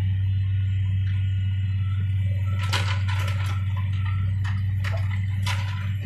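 Caterpillar tracked excavator's diesel engine running hard under hydraulic load, a steady low drone. From about two and a half seconds in comes a string of sharp cracks and crunches as demolition debris breaks and falls.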